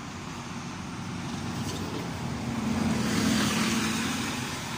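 Double-decker bus driving close past. Its engine hum and tyre noise build to their loudest about three seconds in, then ease off as it moves away.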